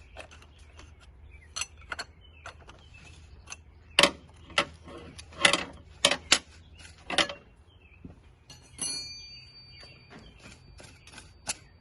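Irregular metallic clicks, knocks and clinks as a wrench on a socket-type cap tool works the oil filter housing cap loose on top of a Mercedes V12 engine. There is a cluster of louder knocks in the middle and a short metallic ring near the end.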